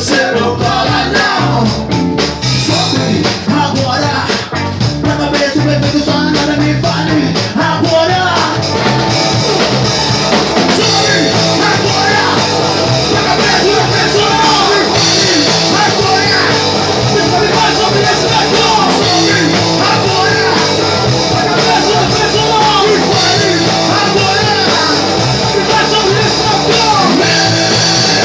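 Rock band playing live: electric guitar, bass and drums, with a lead vocal. The sound gets fuller and brighter from about nine seconds in.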